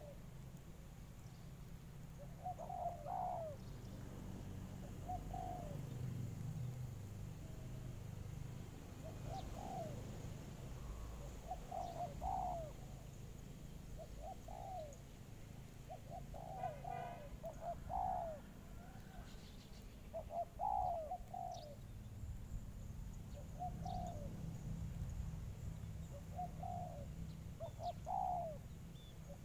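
Spotted doves cooing: short, low coo phrases repeated every two to three seconds.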